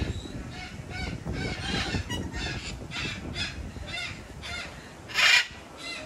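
Parrots calling: a run of short, harsh, honking calls, then one loud screech about five seconds in.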